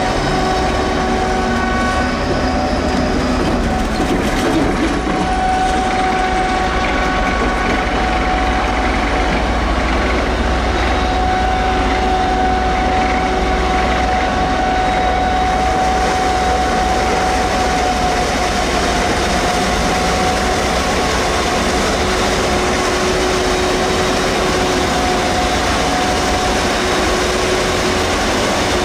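Claas Jaguar 990 forage harvester running steadily, a low drone carrying several high whining tones that hold level throughout.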